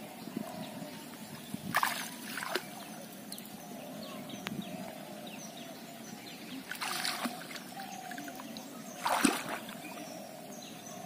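Shallow pond water splashing and sloshing around a person's legs as she wades in, in three short bursts, the loudest near the end.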